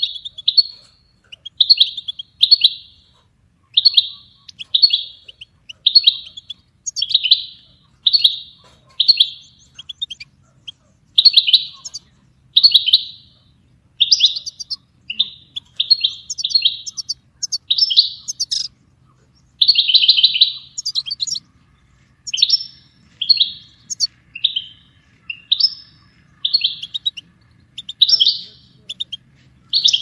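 European goldfinch singing a series of short, rapid phrases, about one a second, with a few higher, sharper notes among them.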